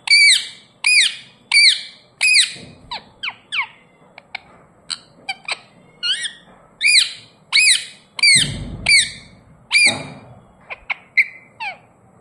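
Indian ringneck parrot squawking: a long series of short, sharp calls, each falling in pitch, one or two a second with brief pauses.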